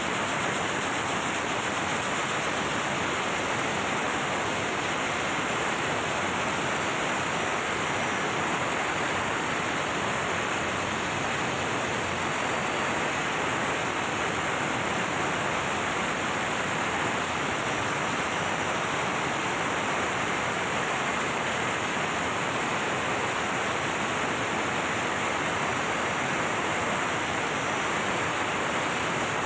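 MAN B&W auxiliary diesel generator engine running steadily under load, at about 75%, heard at close range as a loud, even rushing noise.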